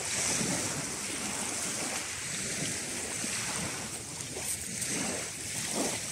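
Small sea waves washing steadily onto a shingle beach, with wind on the microphone.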